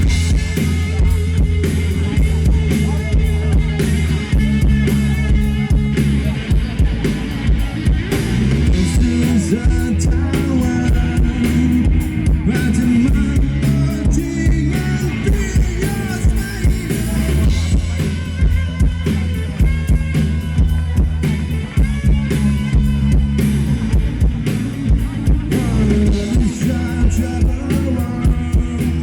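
Live rock band playing: electric guitar, bass and drum kit, with some singing.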